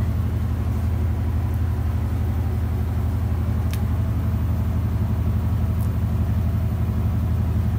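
Steady low machine hum that does not change, with a single faint click about halfway through.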